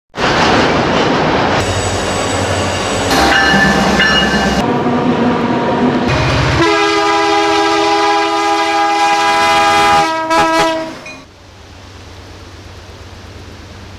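Train sounds cut together in sections: loud rumbling rail noise, then a locomotive air horn sounding a steady multi-note chord for about four seconds, ending in a few short blasts. About eleven seconds in it drops to a much quieter steady background hiss.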